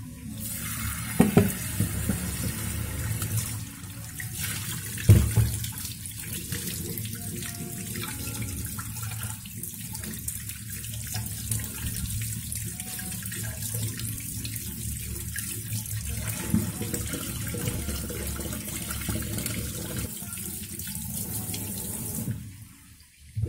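Kitchen tap running into a stainless steel sink, the water splashing over hands rinsing a piece of fish under the stream. Two sharp knocks about one and five seconds in, and the tap is shut off near the end.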